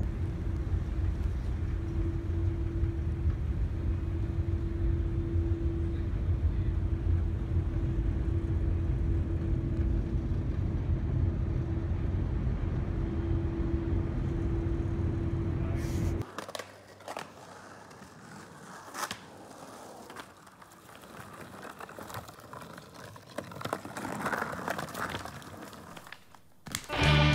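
Car ferry's engines running: a steady low rumble with a constant drone. It cuts off abruptly about two-thirds of the way through, leaving quieter scattered clicks and knocks.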